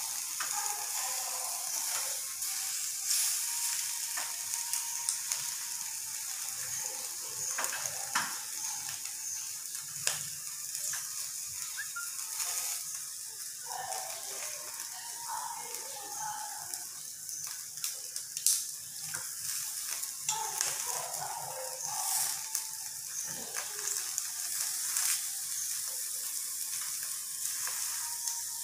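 Chicken pieces sizzling on the wire rack of an electric tabletop grill, a steady hiss, with scattered clicks of metal tongs against the rack and a steel mixing bowl as the pieces are moved.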